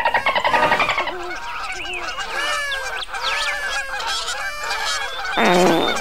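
Many overlapping honking, trumpet-like calls from the sky, gliding up and down in pitch. It opens with about a second of fast, pulsing buzz falling in pitch, and a louder blast that drops low comes near the end.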